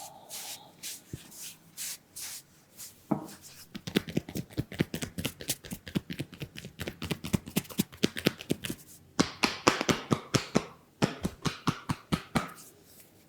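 Hands tapping and patting during a head massage: a few scattered taps, then a fast run of sharp pats, several a second, with a stretch of rustling friction partway through.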